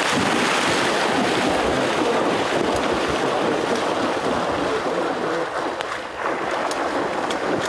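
A retriever bounding and splashing through shallow flood water, a steady loud churn of splashing as it goes out for a downed duck.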